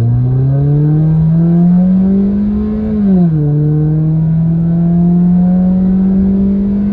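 Exhaust of a Kia with its muffler and resonator deleted, heard from inside the cabin with the windows up, under hard acceleration. The engine note climbs steadily, drops sharply at an upshift about three seconds in, then climbs again in the next gear.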